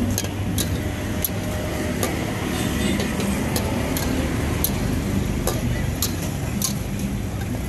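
Metal ladle clinking and scraping against a steel wok as squid is stir-fried for seafood fried rice, with about a dozen sharp clinks roughly every half second, over a low steady rumble.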